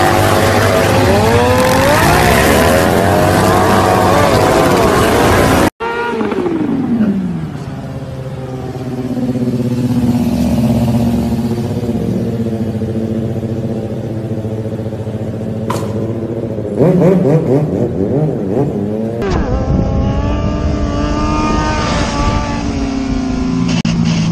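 Motorcycle engines revving, cut between several stunt clips. First a cruiser revs hard in a burnout, its spinning rear tyre adding a loud hiss. After a sudden cut an engine drops in pitch and holds steady revs through a wheelie, revs up again a few seconds before the end, and then another bike runs on a wheelie.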